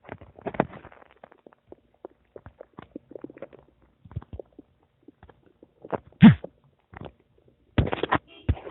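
Human stomach gurgling: scattered small crackles and bubbling, a loud gurgle about six seconds in that drops in pitch, and a cluster of loud gurgles near the end.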